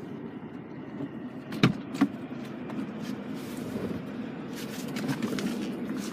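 Two sharp knocks close together about a second and a half in, over a steady low rumble, followed by a few lighter clicks near the end.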